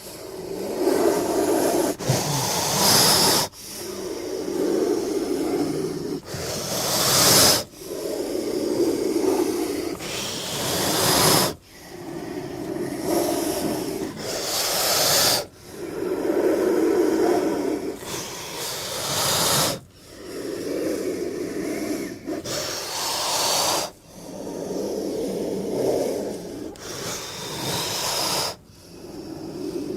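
King cobra hissing over and over, about every four seconds. Each hiss starts as a low, rough growl, swells into a sharper, higher hiss and cuts off suddenly.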